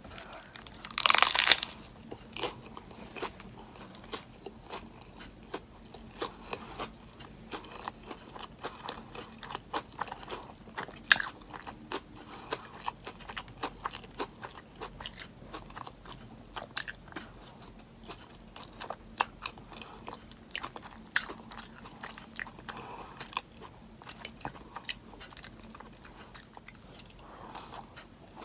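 Close-up eating sounds: a person chewing with wet mouth clicks and small crunches as she eats sauce-covered fries, with a brief louder rustling rush about a second in.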